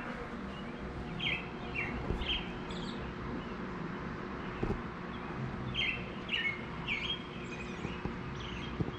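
Birds calling back and forth, echoing along a river: short, high, downward-dropping notes in a run of about four starting a second in, and a second run of about four near six seconds, over a steady low hum.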